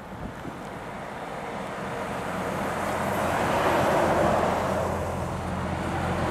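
Lorry's diesel engine running at steady revs, getting steadily louder as the truck draws near, with a rising rush of road and tyre noise.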